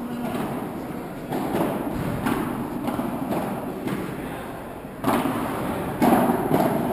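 A padel rally: the ball being struck by padel rackets and bouncing, heard as several sharp thuds about a second or more apart, the loudest near the end.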